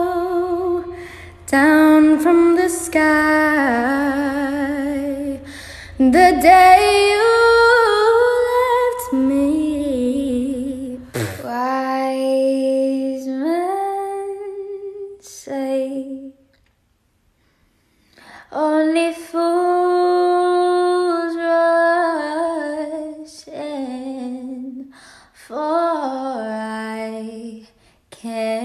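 Young women singing solo without accompaniment, a sustained, wavering melody with vibrato; about eleven seconds in a second singer takes over, and after a short pause of about two seconds she goes on.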